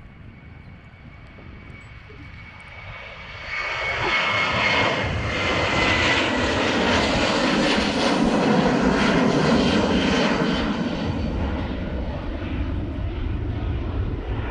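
Narrow-body jet airliner taking off: its engine noise swells sharply about three and a half seconds in, with a high whine falling slightly in pitch, then eases a little into a deep rumble as it climbs away.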